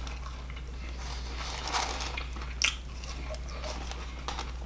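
A person chewing food close to the microphone, with small crunchy bites and one sharper crunch about two and a half seconds in, over a steady low hum.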